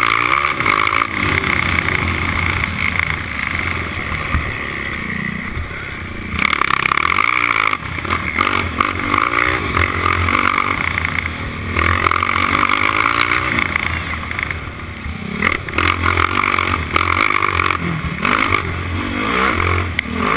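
Four-stroke race quad's engine revving hard and backing off again and again as the throttle is opened and closed, its pitch rising and falling, heard from the quad itself with wind and rough-track noise.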